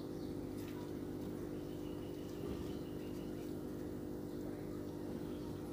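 A steady low hum, with faint scrapes and taps of a silicone spatula stirring egg masala in a steel pressure cooker.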